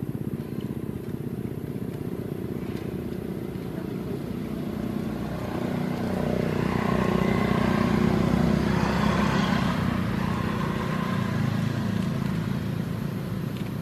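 A motor vehicle engine running, growing louder to a peak about eight seconds in and then fading as it passes by.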